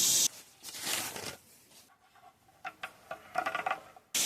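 Light rustling, then a quick run of small clicks and rattles as shower parts and their packaging are handled. A steady hiss cuts off abruptly just after the start and comes back abruptly near the end.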